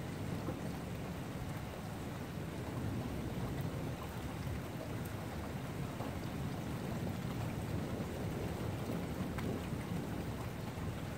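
Steady rain in a thunderstorm: an even hiss with scattered drop ticks over a low, continuous rumble.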